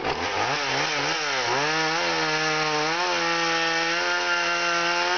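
Chainsaw engine revving up, its pitch wavering for about two seconds, then running steadily at high speed while cutting through a spruce trunk during a felling cut.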